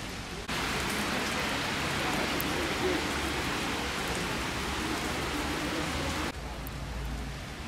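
Steady rain falling on wet paving, an even dense hiss. It turns suddenly louder about half a second in and drops back just as suddenly near the end.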